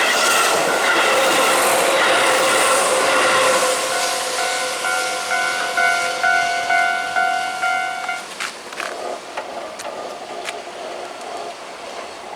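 Keihan electric train running past a level crossing, with the wheels on the rails loud for the first three to four seconds and then fading. The crossing's warning bell keeps dinging steadily until it stops about eight seconds in, followed by a few sharp clicks.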